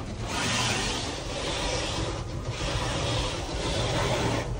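Automatic car wash spraying water over the car, heard from inside the cabin: a steady hiss that dips briefly about every two seconds.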